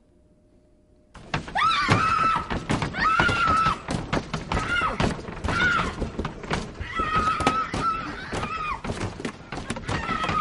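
Near silence for about a second, then rapid, heavy pounding and rattling on a door that keeps going. Over it, a high-pitched wailing cry repeats about once a second.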